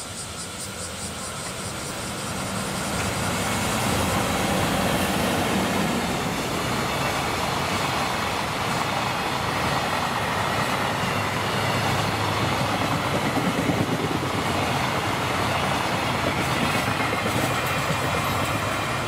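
EF64 1000-series electric locomotive and a long train of container wagons passing, the wheels running steadily over the rails. The noise builds over the first few seconds as the locomotive comes by, then holds steady as the wagons roll past.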